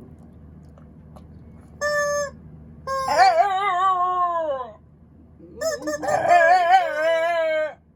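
A short, flat squeak from a pig toy, then a black Shiba Inu howls twice along with it, "singing" in two long, wavering howls; the first drops in pitch at the end.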